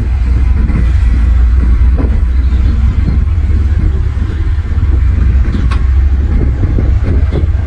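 Heavy diesel earthmoving machinery running with a loud, steady low rumble, with a couple of sharp metallic clanks.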